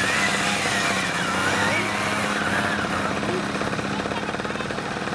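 Small trial motorcycle engine running with rapid firing pulses under a steady hum, its revs rising and falling as the bike is ridden.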